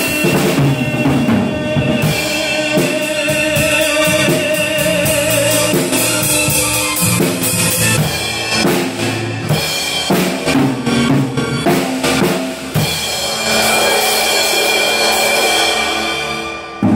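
Live acoustic drum kit played over a karaoke backing track through the song's instrumental outro, with bass drum, snare and cymbal hits. It closes on a final hit near the end.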